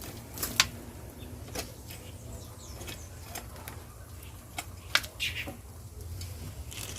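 Digging in a soil-filled grow box: scattered scrapes and knocks, two of them sharp and loud, about half a second in and near five seconds. A short bird chirp comes shortly after the second knock.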